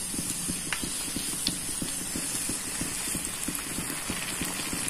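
Chicken spring roll deep-frying in hot oil: a steady sizzle of dense, rapid crackling pops.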